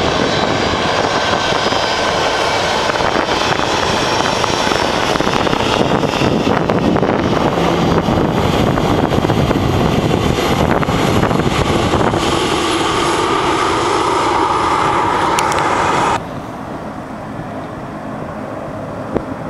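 Boeing 737-800's CFM56-7B turbofan engines at taxi power as the jet rolls close by: a loud steady jet rush with a high whine that slowly falls in pitch. About three seconds before the end the sound cuts abruptly to a quieter, more distant engine noise.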